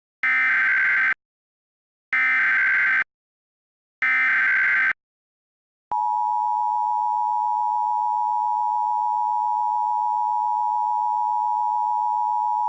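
Emergency Alert System SAME header: three identical buzzy data bursts of about a second each, spaced about two seconds apart. About six seconds in comes the EAS two-tone attention signal (853 and 960 Hz), held steady and loud, which announces that an alert message follows.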